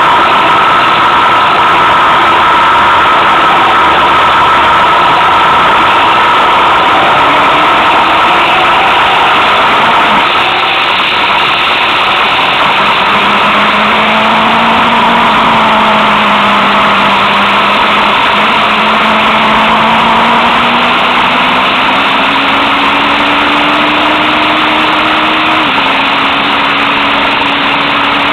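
Motorcycle engine pulling along at road speed under a heavy rush of wind noise on the microphone. The engine note sinks around ten seconds in, climbs slowly, then drops sharply once near the end.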